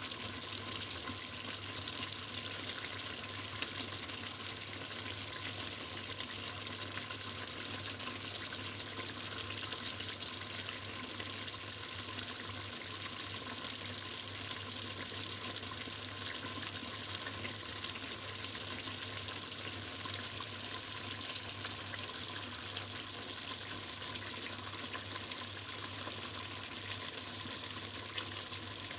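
Chicken mechado stew simmering in a stainless steel pot: a steady sizzle with fine crackling.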